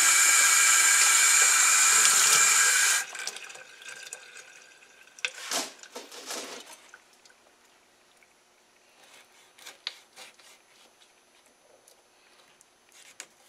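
Water from a tap running steadily into a sink while flounder is rinsed, stopping suddenly about three seconds in. A few light knocks and rubs follow as the fish is handled on a wooden cutting board.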